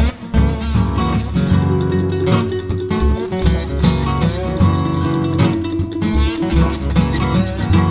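Background music led by acoustic guitar, plucked and strummed, over a bass line.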